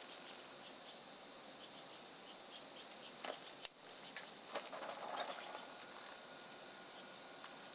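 Wood fire crackling in a stainless-steel mesh fire pit: a faint steady hiss with small scattered ticks, then a short run of crackles and pops around the middle, led by one sharp snap.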